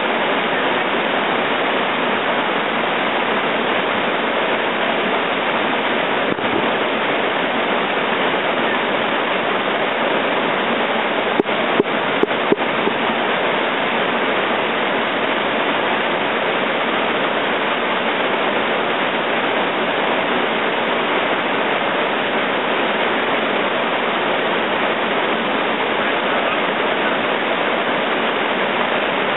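Whitewater rapids pouring over a rocky ledge: a steady, loud rush of water. A few sharp knocks in quick succession about halfway through.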